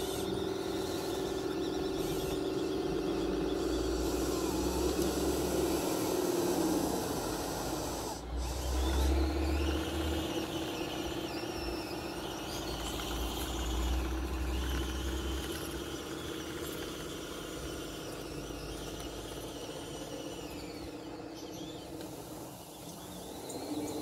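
Radio-controlled D11 bulldozer's electric drive motors and gearboxes whining as it pushes a pile of soil and then reverses, the pitch shifting with throttle. The sound breaks off briefly about eight seconds in.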